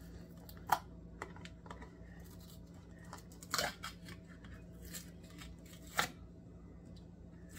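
Spoon scraping mayonnaise out of a large jar, a few short scrapes and knocks, the loudest about a second in, near the middle and about six seconds in.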